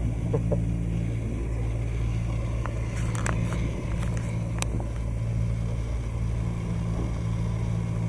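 Sailing yacht's inboard engine running steadily under way, a constant low hum, with a few sharp clicks around the middle.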